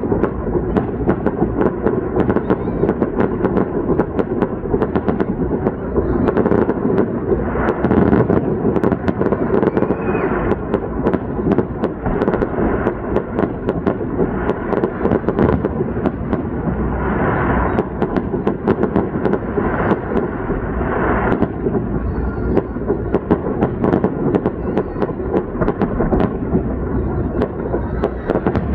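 Fireworks going off close by in rapid succession: an unbroken crackle of pops and bangs.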